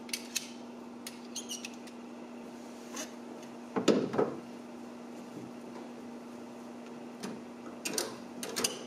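Ratchet strap being handled and threaded: webbing rustling and sliding, with scattered light clicks of the metal ratchet and hooks and a louder rustle about four seconds in.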